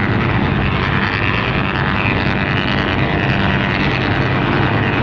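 Motor running steadily, an even low drone under a dense wash of noise.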